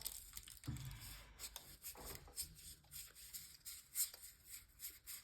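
Faint rubbing and soft ticks of Pokémon trading cards being handled and slid against each other.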